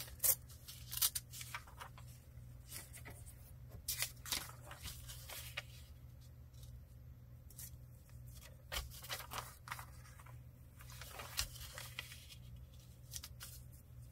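Paper being handled, torn and cut by hand: scattered short crackles and rustles of paper, some sharp, over a faint steady low hum.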